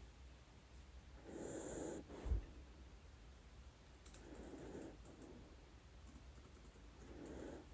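Dachshund snoring softly in her sleep: three slow breaths about three seconds apart, with a short low thump just after the first.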